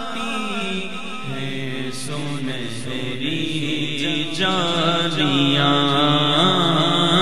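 A man chanting a naat, an Urdu devotional poem, in long, drawn-out melodic phrases into a microphone. A steady low drone sits beneath the voice from about a second in.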